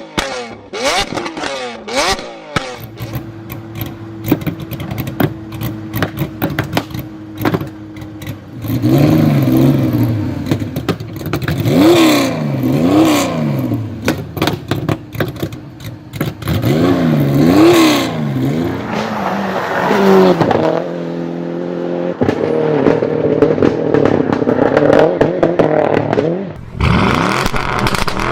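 Performance car engines revved repeatedly, the pitch climbing and falling with each blip of the throttle, with sharp exhaust pops and crackles on the overrun at the start and again near the end. Between the revs an engine holds a steady tone.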